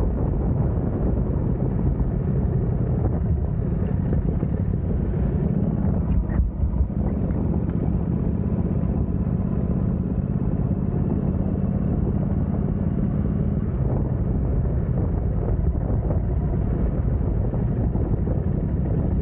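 Bentley Continental GT on the move: steady engine drone and road rumble, with a brief dip about six seconds in.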